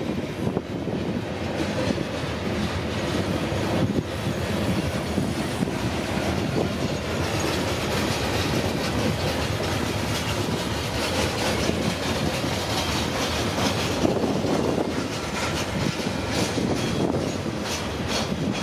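Loaded coal hopper cars of a freight train rolling past: a steady rumble of steel wheels on rail with clicking as the wheels cross the rail joints.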